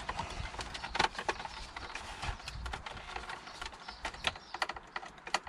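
Irregular light clicks and knocks as a plastic centre-console armrest assembly and its screws are handled, while the screws are being put in.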